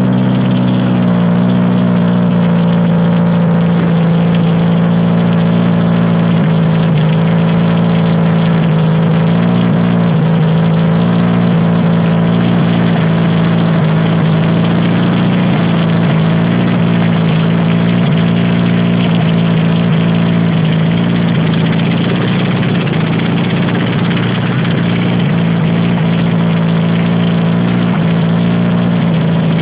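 Toyota Hilux engine of a homemade belt-driven air compressor running steadily at idle without a muffler, just after starting, its revs settling in the first couple of seconds.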